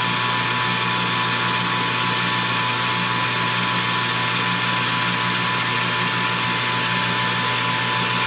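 Metal lathe running steadily with a constant whine while a long twist drill in the tailstock bores into the spinning workpiece.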